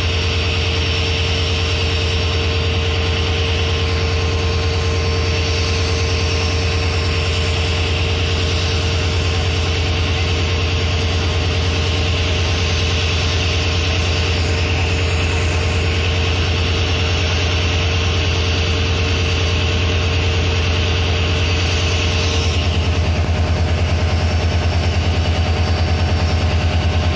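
WDP4B diesel locomotive engine running steadily while the train stands: a deep, even drone with a faint constant whine above it, growing slightly louder near the end.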